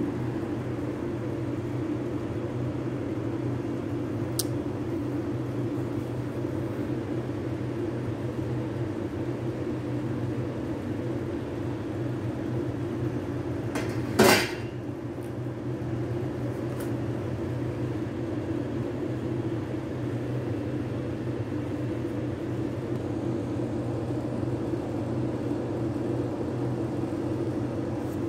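Steady low mechanical hum of a kitchen machine. About halfway through, a single sharp metallic clink with a short ring: a metal spoon knocking against the steel pan of cooked rice.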